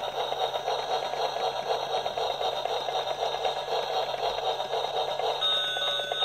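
Battery-operated transparent gear toy train playing an electronic sound effect from its small speaker: a fast pulsing warble that switches about five seconds in to steady, ringing electronic tones like an alarm-clock chime.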